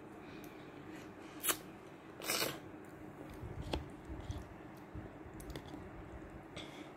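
A young child eating instant noodles: chewing, with a few sharp clicks of a metal spoon against a plastic bowl.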